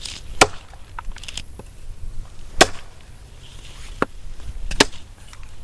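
Sharp wood knocks struck on the hollow trunk of a fallen, termite-eaten gum tree: four loud knocks at uneven intervals, with a few lighter taps between them. This is tree-knocking, the kind of knock used as a call to a yowie.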